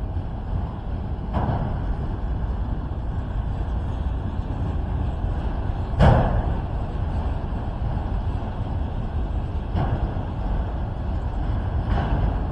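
Steady low vehicle rumble with a few sharp knocks at irregular spacing, the loudest about six seconds in.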